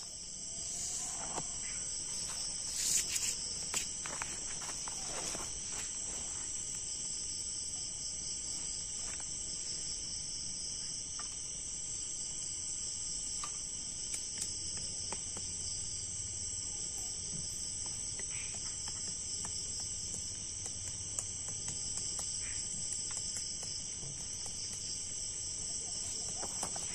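Steady, high-pitched chorus of night insects in tropical forest. About three seconds in come a few light knocks and clatters of sticks being handled.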